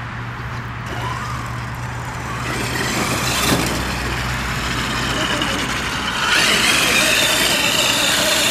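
Traxxas X-Maxx electric RC monster truck driving over gravel and grass, its motor whining and wavering in pitch with the throttle over a steady noise of running gear and tyres. The whine grows louder and higher in the last couple of seconds.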